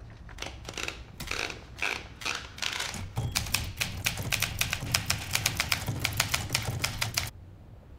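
Manual typewriter being typed on: a few hesitant, spaced keystrokes for about three seconds, then a quick, steady run of typing that stops abruptly about seven seconds in.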